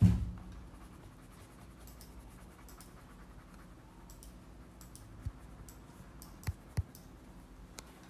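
Wax crayons scratching and ticking faintly on a colouring-book page. A dull thump comes at the start, the loudest sound here, and a few light knocks follow later, two of them close together.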